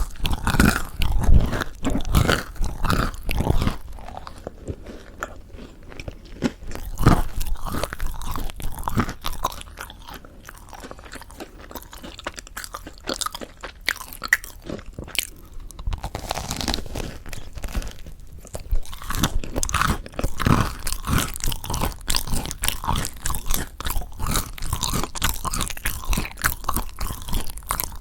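Close-miked biting and chewing of crispy mocha bread, its crust crunching. The crunching is loud and dense at first, drops to quieter, sparser chewing after about four seconds, and picks up again after about sixteen seconds.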